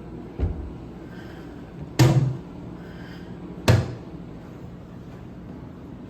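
Kitchen doors knocking shut three times, about a second and a half apart, the second and third louder than the first.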